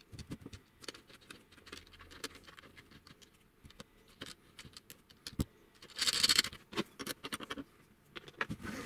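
Fingers handling the threaded depth-stop bolt and nut on a 3D-printed plastic router base: a run of small clicks and scratches, with a louder scraping rub about six seconds in.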